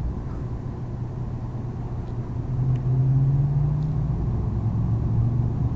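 A motor vehicle's engine running steadily with a low hum, its pitch rising for a second or so about halfway through as it speeds up, then settling again.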